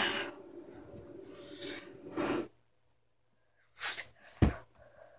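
A child's long raspy yell that stops about two and a half seconds in, followed after a pause by a short sharp breathy burst and a thump.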